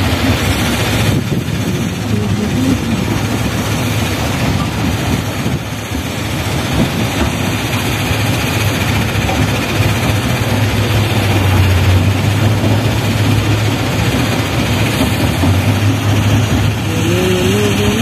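Heavy diesel engine running steadily under a dense rush of noise. Its low drone swells about ten seconds in, and its pitch rises near the end.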